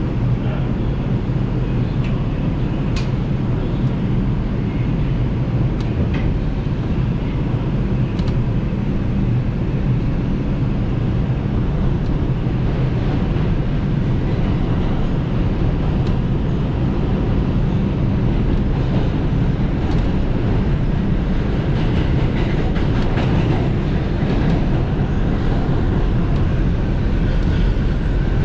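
New York City subway train running, a steady low rumble of wheels on rails with a few faint clicks in the first part and a slight swell near the end.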